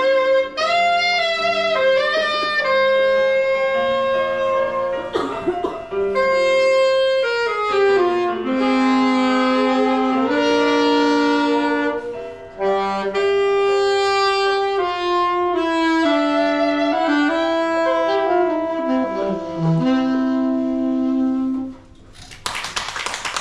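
Two saxophones playing a slow melodic duet, the two lines moving in harmony and closing on long held notes. The playing stops shortly before the end and audience applause begins.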